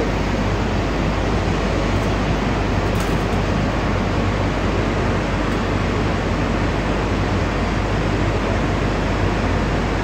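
Steady noise of power-plant machinery running, an even rush with a low hum underneath and no change throughout.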